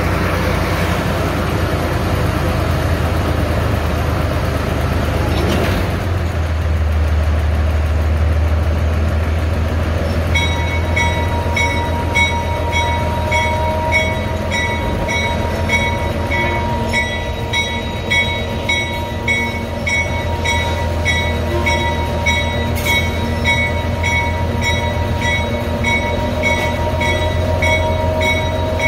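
Small diesel locomotive's engine running under load, its low drone growing louder about six seconds in as the train gets moving. From about ten seconds in, a bell rings steadily about twice a second over the engine.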